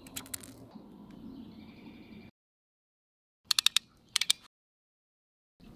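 Small clusters of quick, sharp clicks from crimp-on wire connectors and a crimping tool being handled, over a faint low hum, with stretches of dead silence between.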